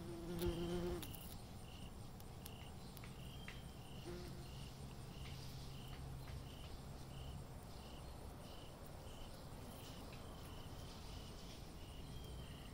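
A cricket chirping steadily, a short chirp roughly every half second, with a few faint clicks.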